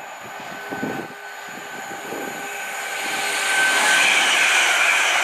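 London Midland Class 350 Desiro electric multiple unit passing through at speed. The rush of wheels and air builds from about two seconds in and becomes loud, with a steady high whine running through it.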